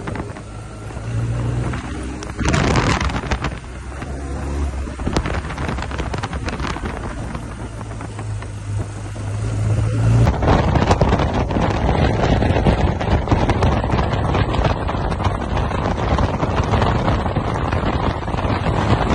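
Motorcycle engine running at a steady cruise with wind on the microphone, its low note rising slightly just before a sudden cut about ten seconds in. After the cut, a louder steady rush of wind over the microphone covers everything.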